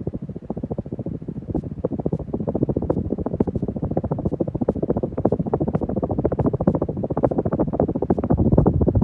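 Hunter Low Profile hugger ceiling fan running, its draft buffeting the microphone in a dense, low, rumbling flutter that grows louder toward the end.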